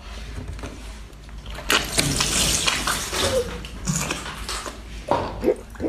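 Wet slurping and squelching mouth sounds of a person biting into and sucking on a large raw shellfish. They come in several spells, the loudest about two seconds in.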